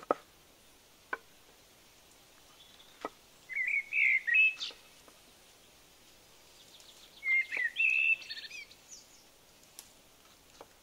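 Knife blade striking a wooden chopping board in single, spaced chops while slicing jackfruit. Twice a bird sings a short burst of chirping song, each about a second long and louder than the chops.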